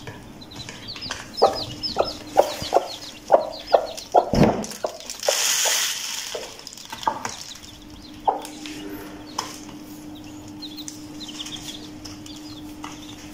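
Aseel hen clucking in a quick run of short clucks that thin out in the second half, with chicks peeping high and thin over it. A brief rustling noise about five seconds in.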